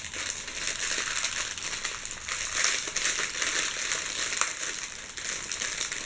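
Crinkly wrapping being crumpled and rustled by hand as an item is unwrapped: a dense, continuous crackling rustle with small clicks throughout.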